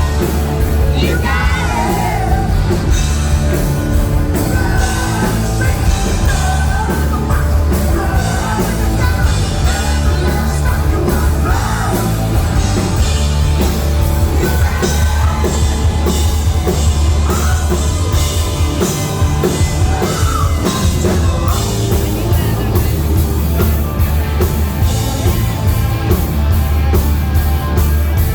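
Live hard rock band playing loud, with a singer over distorted guitars, heavy bass and pounding drums.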